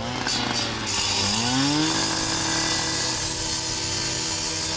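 Stihl petrol cut-off saw revving up over the first two seconds, then holding at high speed as its disc cuts through a metal fence.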